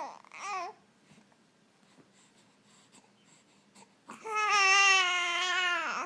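A young child's voice: two short high sounds right at the start, then, about four seconds in, a long whining cry of about two seconds that drops in pitch as it ends.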